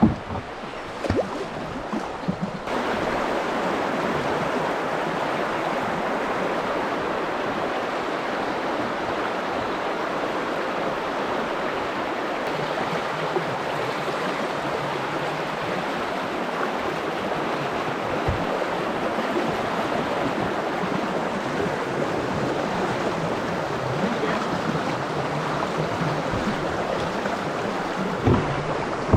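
Rushing water of a shallow river rapid, a steady loud rush that starts abruptly about three seconds in. A few light knocks come before it.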